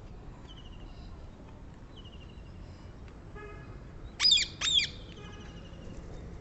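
Rose-ringed parakeet giving two loud, shrill screeching calls about half a second apart, a little past the middle, over fainter short trilling bird calls.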